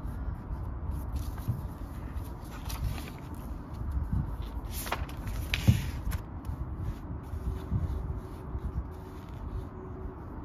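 Paper notebook being handled on a desk: pages and cover moving, with a few soft knocks as it is shut and set down a little past halfway, and paper rustling.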